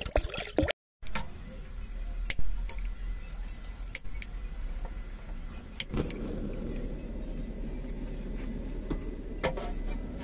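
Water being poured onto lentils in a pot for a moment, then a few sharp clicks and an LPG ring burner being lit with a lighter. From about six seconds in the gas flame burns with a steady rush under a low hum.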